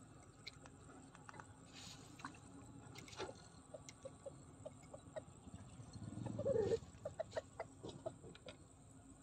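Faint animal calls outdoors: a run of short, low calls, with one louder call about six seconds in.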